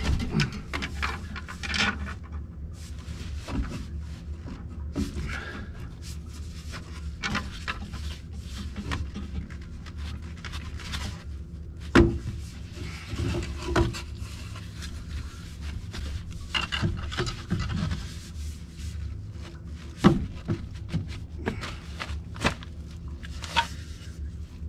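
Irregular knocking, rubbing and scraping from hand work, with two sharper knocks, over a steady low hum.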